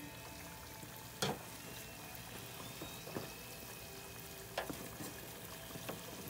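Half-moon pastries deep-frying in a steel fryer, the oil sizzling and bubbling steadily. Four sharp clicks spread through it come from wooden chopsticks knocking as they turn the pastries.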